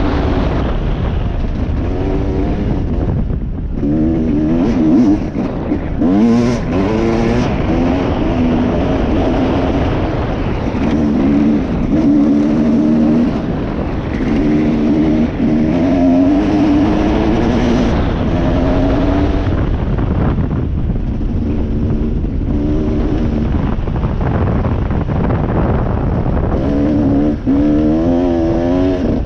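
Dirt bike engine running while being ridden, its pitch rising and falling over and over as the throttle is opened and closed, over a steady rushing noise.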